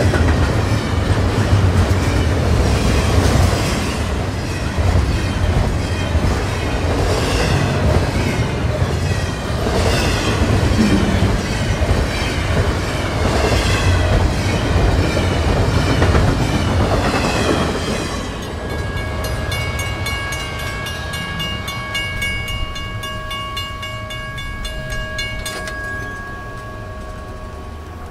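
Double-stack intermodal freight train passing close by, with a heavy rumble of cars and the clatter of wheels over the rails. About two-thirds of the way through, the last cars go by and the noise falls away, leaving the level crossing's warning bell ringing.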